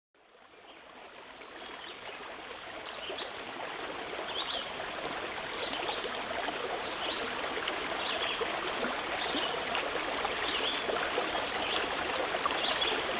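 Stream water running steadily, fading in over the first few seconds. Short high chirps come about once a second over the water.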